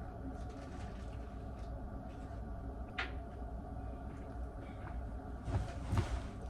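Steady low room hum, with a single sharp click about three seconds in and a few soft knocks and rustles near the end.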